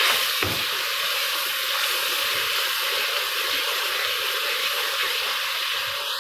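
Onion-tomato masala frying in hot oil in a karahi, a steady sizzle, while it is stirred with a wooden spoon during the bhuna stage.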